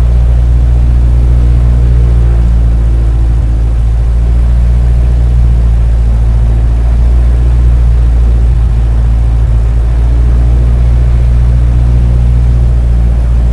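Loud, steady low drone of an aircraft's engines in flight, holding an even pitch throughout.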